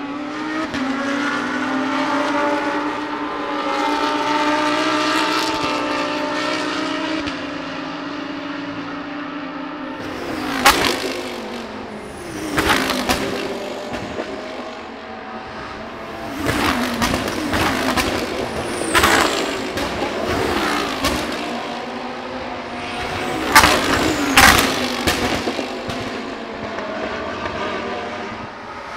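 Lamborghini Huracán GT3 race cars' 5.2-litre V10 engines at racing speed. For the first several seconds one car's engine note carries on at length. Then, from about ten seconds in, roughly seven cars pass close by in quick succession, each a short loud rush with its pitch falling as it goes past.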